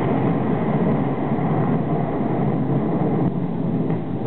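Amplified concert music and crowd noise in a stadium, heard as a steady, dense roar with no clear tune standing out.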